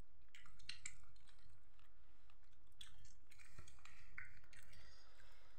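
A person chewing and crunching food at close range: short clusters of small crisp clicks and crackles, about half a second in and again around three and four seconds.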